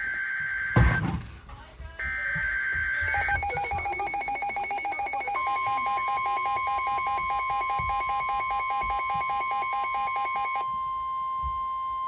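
NOAA Weather Radio emergency alert: harsh digital EAS/SAME header data tones, broken by a loud click, then a receiver's fast pulsing alarm beep, about four pulses a second. About five seconds in the steady 1050 Hz weather radio warning alarm tone starts and holds, marking an incoming severe thunderstorm warning.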